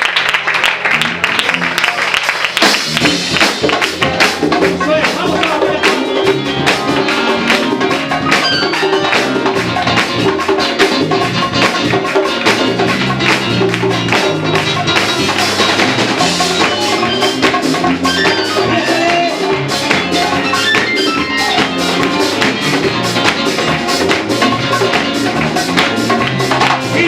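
Congregation applauding for about two and a half seconds, then a praise band starts a Latin-style worship song with tambourine, drums and bass, keeping a steady beat.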